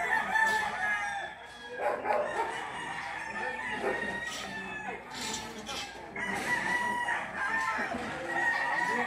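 Roosters crowing, several long crows one after another, some overlapping.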